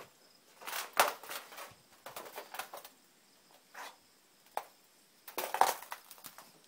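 Footsteps crunching on gravel: a few uneven steps with pauses between them, loudest about a second in and again near the end.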